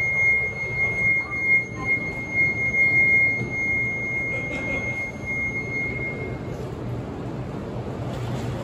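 A Shinkansen departure warning buzzer sounds one long, steady high tone for about six seconds while the doors of an E5-series bullet train close, then stops. Under it runs the steady rumble of the train and station.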